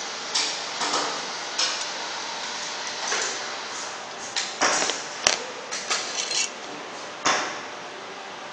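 Irregular metal clicks and clinks of a hex key, loose bolts and the aluminium end cover of a rotary vane vacuum pump as the cover is unbolted and lifted off, over a steady hiss.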